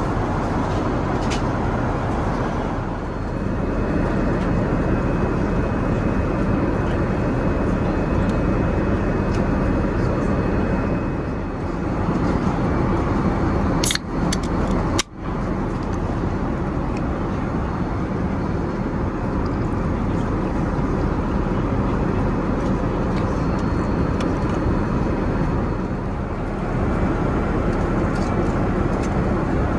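Steady cabin noise of a Boeing 787-9 airliner in flight: an even rush of airflow and engine drone. About halfway through comes one brief sharp crack, as the pull-tab of a drink can is opened.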